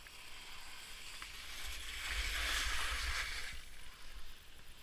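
Skis sliding over snow, a hiss that builds to its loudest about two to three seconds in and then eases, with wind rumbling on the camera microphone.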